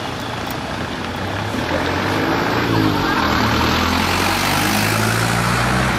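Road traffic at a street crossing: motor vehicle engines and tyre noise, growing louder about two seconds in as vehicles pull away and pass, then holding steady.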